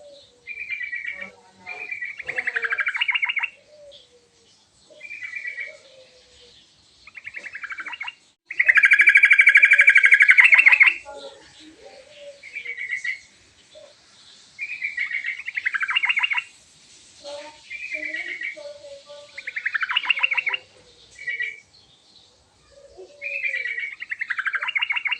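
Yellow-vented bulbul (trucukan) singing: short chattering phrases of rapid notes every second or two, with one long, loud phrase about nine seconds in.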